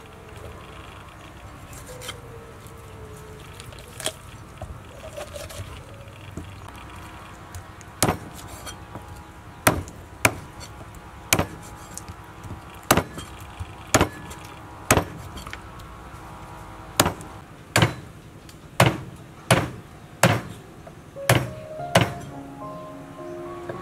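Cleaver chopping a raw whole chicken into pieces through bone on a wooden chopping block: a few scattered chops at first, then sharp chops about one a second from about a third of the way in.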